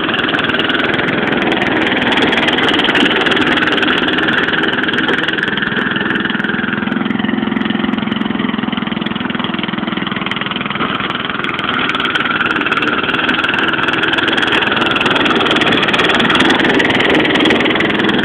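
Engine of a home-made bush hog mower running steadily through its warm-up, with a slight change in its note around the middle.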